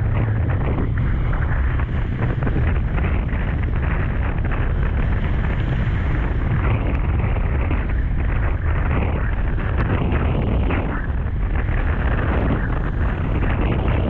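Strong storm wind buffeting the microphone, a loud, steady low rumble, over the wash of rough surf.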